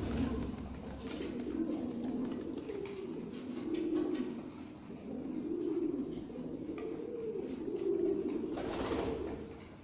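A flock of Lahore pigeons cooing together: many low, rolling coos overlap without a break. A short rushing noise comes in near the end.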